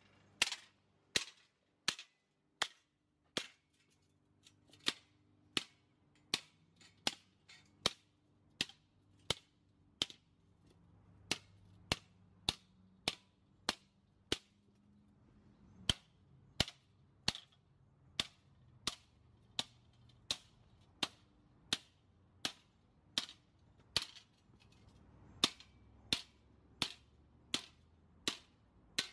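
Sledgehammer repeatedly striking a perforated steel angle strip laid on concrete, a sharp metallic impact about one and a half times a second, steady throughout. The strip is being beaten flat.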